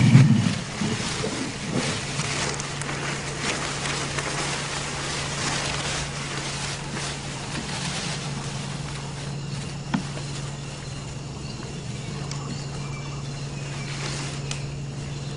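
Rainforest ambience: a steady haze of insect buzzing and chirping over a constant low hum, with a loud low rumble right at the start and a few faint clicks.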